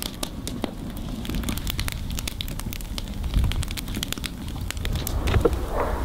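Wood campfire crackling, with many irregular sharp pops and snaps.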